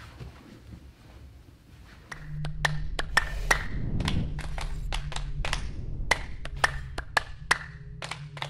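Outro logo sting sound effect: a low drone with a fast, irregular string of sharp clicks and taps, some ringing briefly. It starts suddenly about two seconds in, after a faint start.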